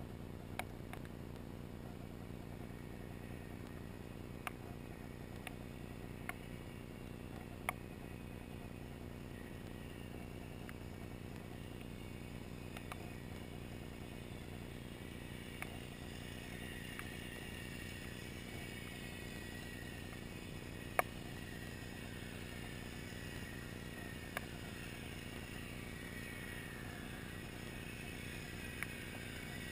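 Sound heard through water and a camera housing: a steady low hum with scattered sharp clicks every few seconds. From about halfway, a wavering whine that slowly falls in pitch comes in from a distant motor, most likely a boat.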